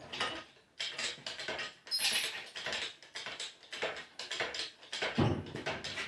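Hand tools and metal parts clicking and clattering as they are handled, with a heavier thump about five seconds in.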